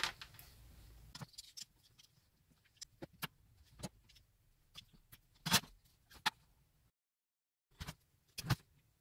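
Scattered small clicks and taps from hands handling a pump's cable and a pair of wire strippers on a metal bench, with sharper clicks about halfway through and near the end.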